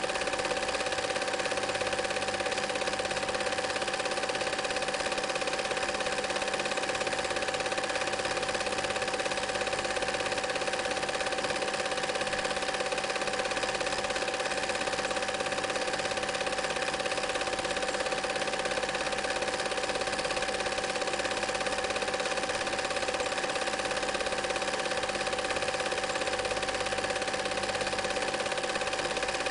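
Film projector running steadily: a continuous mechanical whirr with constant humming tones.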